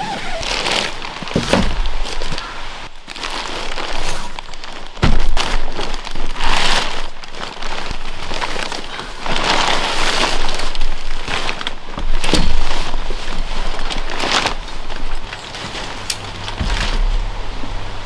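Coleman Swagger 3P tent's nylon fabric rustling and crinkling in repeated swishes as it is unpacked and spread out, with a few thumps of the tent poles knocking on the wooden deck.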